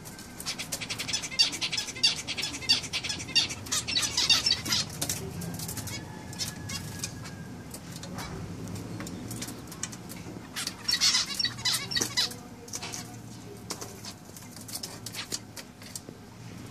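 Zebra finches calling: a flock's rapid high beeps and chatter, busiest in a spell a second or so in and again about eleven seconds in.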